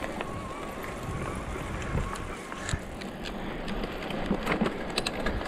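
Mountain bike rolling along a gravel road: tyres on loose gravel under a steady rush of wind on the microphone, with sharp rattling knocks from the bike, several of them close together near the end.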